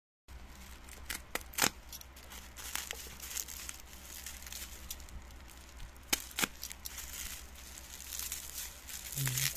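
Bubble-wrap packaging crinkling as it is handled and slit open with a cutter, with a few sharp crackles, the loudest around one and a half seconds in and again about six seconds in, over a steady low hum.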